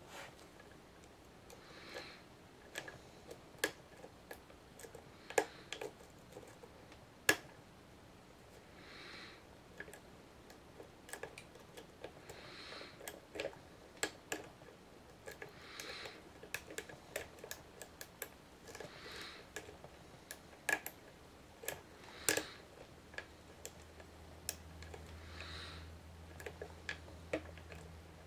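Lock pick and tension wrench working the pin stack of a Master Lock No. 570 padlock: faint, irregular small metallic clicks and ticks as the pick lifts and sets pins in the keyway.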